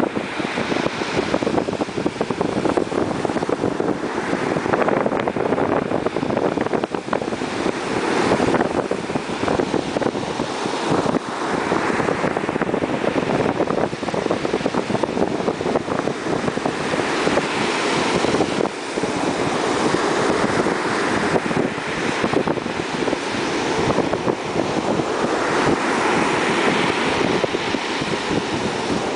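Surf breaking and washing up a beach in a force 6 sea breeze, with the wind buffeting the microphone. The waves swell and fall back every few seconds.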